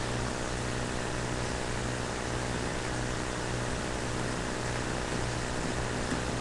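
Steady low hum under a constant hiss, unchanging throughout.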